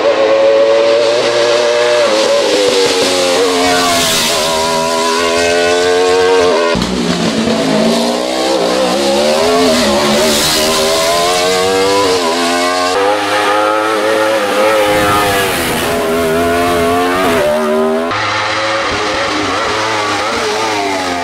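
Wolf GB08 Thunder sports-prototype race car at full racing speed, its engine revving high. The pitch climbs and drops again and again as it accelerates and slows for corners.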